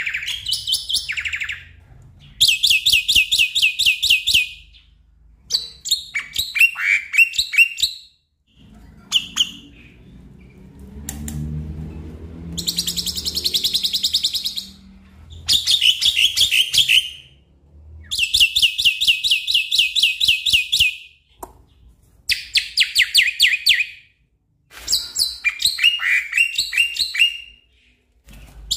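Black-winged myna singing loudly in bursts of a few seconds, with short pauses between: rapid rattling runs of repeated notes alternate with falling whistled phrases.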